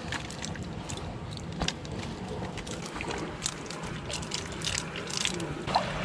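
Irregular small clicks and rustles of a wet nylon cast net being handled and shaken to free small tilapia caught in it, over a steady low hiss.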